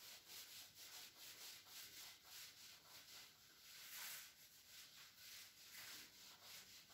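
Whiteboard eraser rubbing across the board's surface, wiping off marker writing in quick back-and-forth strokes, about three a second. It is faint throughout, slightly stronger about four seconds in.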